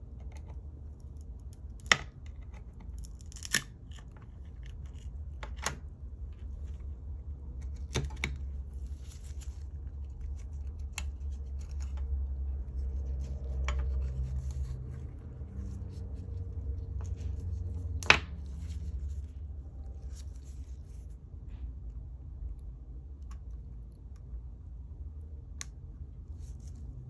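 Sharp clicks and light scraping of small hand tools working on an iPod Classic being disassembled, the loudest snap about eighteen seconds in, over a steady low hum.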